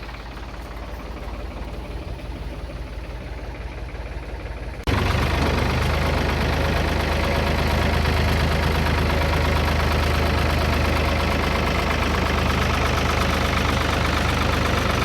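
A motor-vehicle engine running steadily under a low hum, moderate at first, then abruptly much louder about five seconds in and holding steady, as it drags a dead truck.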